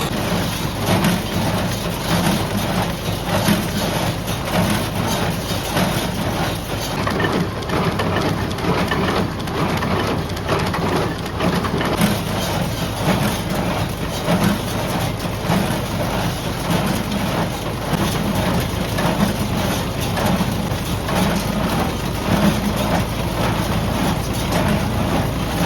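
Tractor engine running steadily while it drives a Welger AP51 small square baler, whose plunger and mechanism give a continuous rapid knocking clatter as hay is fed through and the baler works through its first bale.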